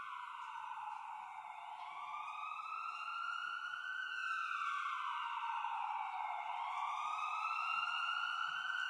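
Recorded ambulance siren played back, wailing with its pitch sliding slowly down and up about every four seconds, then cutting off suddenly near the end.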